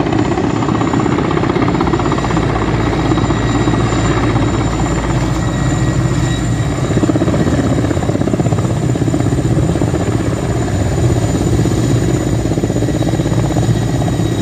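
Mi-8-type twin-turbine helicopter landing close by: the main rotor beats fast and heavy under a thin, steady high turbine whine, loud and unbroken.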